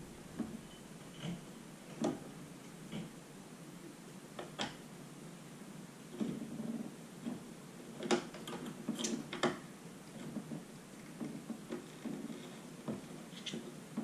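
Hands handling a cable and an HDMI bulkhead connector on an underwater camera housing: scattered small clicks, taps and rustles, with a cluster of sharper clicks a little past the middle.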